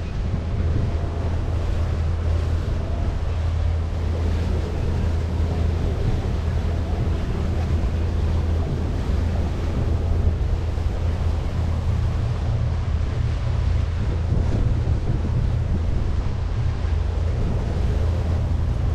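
A tiki hut tour boat's motor running steadily under way, a constant low hum, with wind buffeting the microphone.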